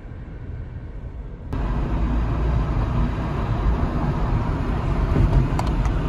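Steady road and engine noise of a moving car: a low rumble with a hiss over it. It starts abruptly about a second and a half in, at a cut, after a quieter low hum.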